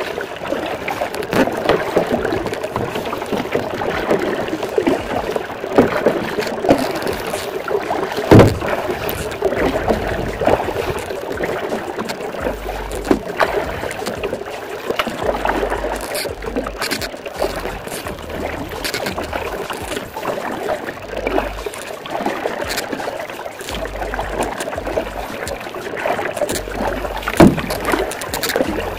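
Kayak being paddled: a steady splashing and rush of water, with a few sharp knocks, the loudest about eight seconds in.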